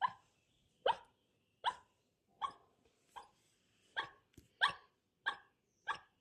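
Puppy hiccupping: nine short, sharp hics at an even pace, about one every three-quarters of a second.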